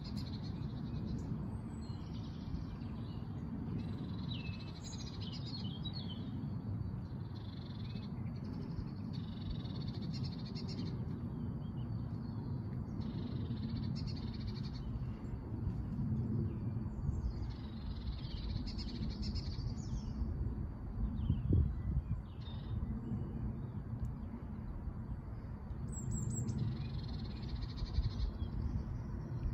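Wild birds calling and singing, in short repeated phrases, over a steady low rumble. One brief low knock sounds about two-thirds of the way through.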